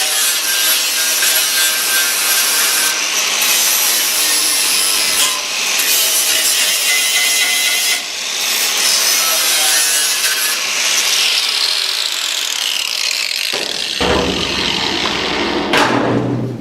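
Power tool cutting out a rusty section of a steel chassis leg, with a continuous, loud, high-pitched cutting noise. About eleven seconds in its whine falls away as the tool winds down, and a different lower noise takes over briefly before it stops near the end.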